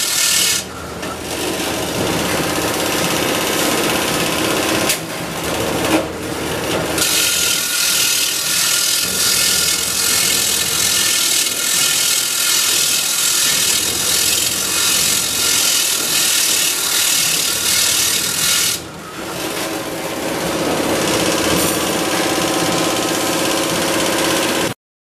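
Pedestal grinding wheel grinding the ends of a bundle of steel wire rods, a loud steady grinding that eases off briefly a few times as the bundle is shifted on the wheel. It stops abruptly near the end.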